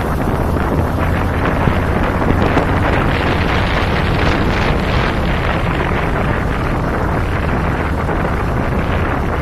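Wind buffeting the microphone of a camera on a moving cruiser motorcycle, steady and loud, with the motorcycle's engine running low underneath.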